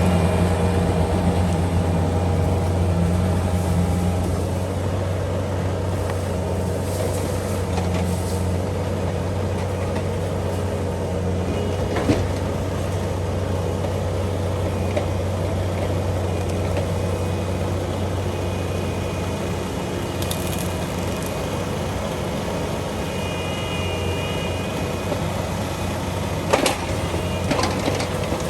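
Bobcat 341D mini excavator's diesel engine running steadily, with a sharp knock about twelve seconds in and a few more knocks near the end.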